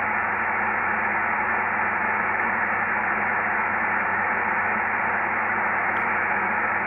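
Steady hiss from a Yaesu FT-897 receiving upper sideband, tuned off a station on the QO-100 satellite's narrowband transponder so that only the noise of the passband comes through. Nothing above the receive filter's voice range is heard, and a faint low hum runs under it.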